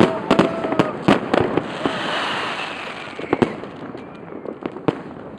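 Fireworks going off: rapid overlapping bangs and cracks, with a dense crackling about two seconds in. The bangs thin out and grow quieter after about three seconds.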